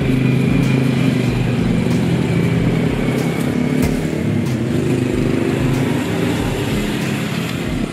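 A motor vehicle engine running close by with a steady low hum over road traffic noise, the hum easing off after about four seconds.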